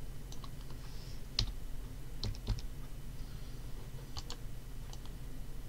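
Irregular, scattered clicks of a computer mouse and keyboard, about eight in all, the sharpest about a second and a half and two and a half seconds in, over a low steady hum.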